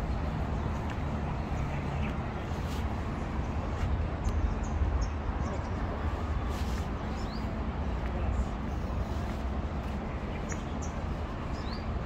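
Steady low rumble of outdoor background noise, with a few short, high bird chirps scattered through it.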